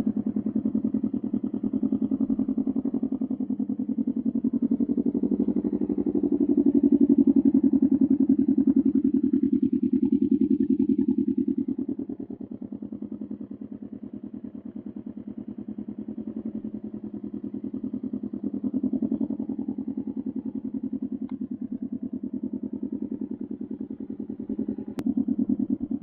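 Can-Am Ryker 600's Rotax 600 ACE two-cylinder engine running steadily through an RLS Carbon Series aftermarket exhaust. The sound grows louder for several seconds past the middle, then drops at about twelve seconds and stays quieter.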